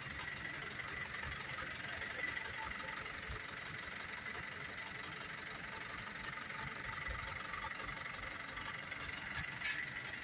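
Steady traffic noise with a vehicle engine running low underneath, and a short rattle near the end.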